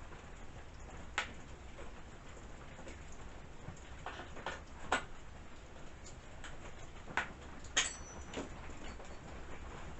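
Scattered light clicks and taps, about seven in all, of chainsaw parts and tools being handled while the bar and chain are fitted, over a faint steady hum.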